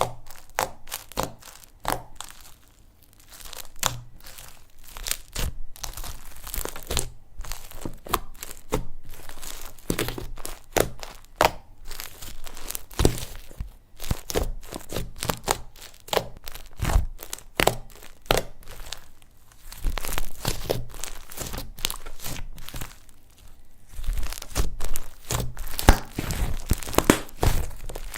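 Slime being squeezed and stretched by hand, giving a continuous irregular crackling of small sharp clicks and pops, louder in bursts toward the middle and near the end.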